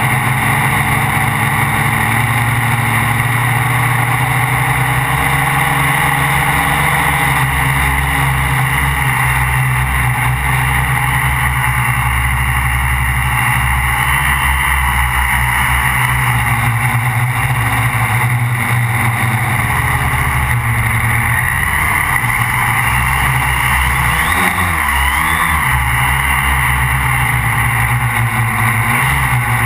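Motors and propellers of a MikroKopter Quad XL quadcopter, heard from the GoPro on board, running with a steady loud drone. About three quarters of the way through, the motor pitch wavers up and down for a couple of seconds.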